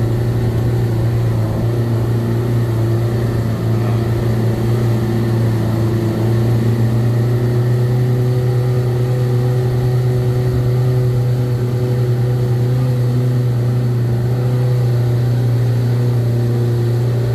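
An open jeep's engine pulling under steady load up a steep hill road: a loud low drone that holds one pitch, with no revving up or gear change, heard from on board.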